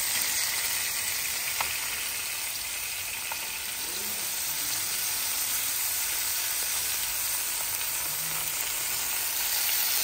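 Ribeye steak sizzling steadily in hot oil in a frying pan, with a couple of faint ticks about a second and a half and three and a half seconds in.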